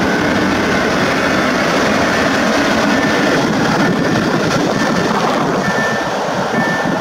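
A long freight train of open gondola wagons rolls past on the track, a steady rumble and rattle of wheels over the rails. A few brief high-pitched squeals come near the end as the last wagons go by.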